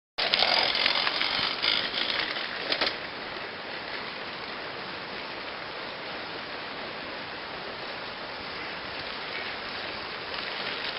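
Home-built recumbent bicycle being ridden off-road: a steady rush of tyre and wind noise with occasional clicks and rattles, louder for the first few seconds.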